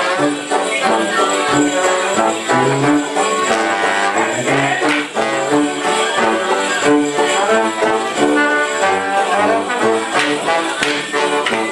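Live band playing a lively Welsh Border morris dance tune in a steady rhythm, with sharp percussive knocks at several points.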